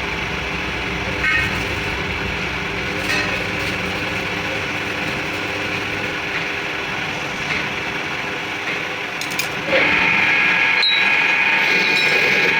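Steady workshop machine noise with a few light metallic clicks. About ten seconds in, a louder machine starts up suddenly and runs on with a steady high-pitched whine.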